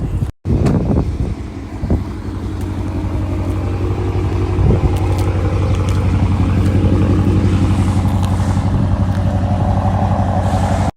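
A machine's motor running with a steady low hum that builds up over several seconds and then holds, with a few knocks near the start.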